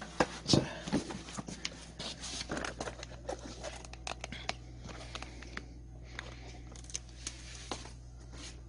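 Handling noise as a switched-off Makita rotary hammer drill is set down on a cardboard box: a few knocks in the first second or two, the loudest about half a second in. Then comes rustling and scattered light clicks.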